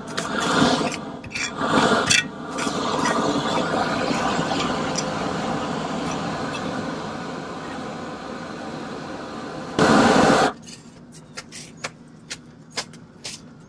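Propane roofing torch burning with a steady rushing noise, louder for a moment just before ten seconds in, then cut off abruptly. After that, a shovel scrapes and taps in short scattered strokes on the roof deck.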